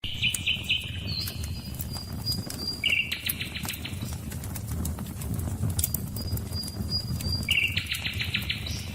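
Campfire crackling with scattered sharp pops over a steady low rush of running water. A bird repeats a pulsed, trilling song phrase three times, and a thin high note sounds twice.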